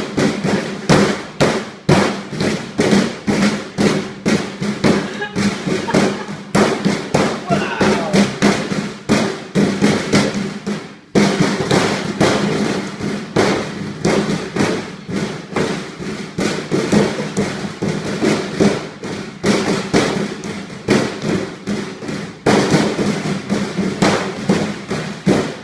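Rapid, irregular banging and thumping, several strikes a second, over a steady low tone, with a brief break about eleven seconds in.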